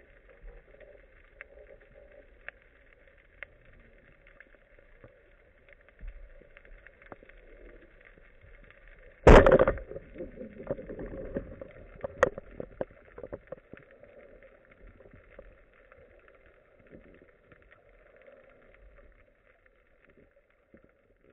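Rubber-band speargun fired underwater about nine seconds in: one loud sharp shot with a brief ringing tail, followed by a few seconds of smaller knocks and rustling. Around it, a faint steady underwater hiss with scattered small clicks.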